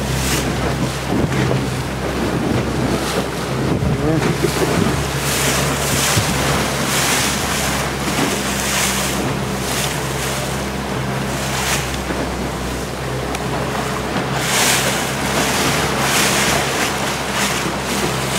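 Wind buffeting the microphone and choppy waves splashing against a boat's hull, with surges of spray every second or two, over the steady low hum of the boat's engine.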